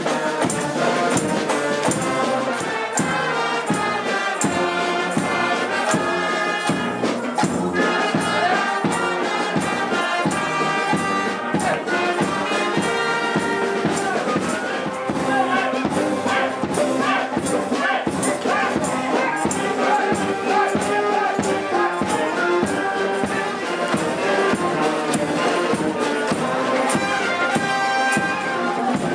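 Live brass band playing an upbeat tune: trumpets, saxophones and sousaphone over a steady beat of bass drum and snare drums, with tambourines jingling.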